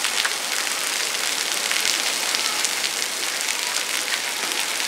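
Falling water pattering steadily on a surface, a dense even hiss full of tiny drop ticks.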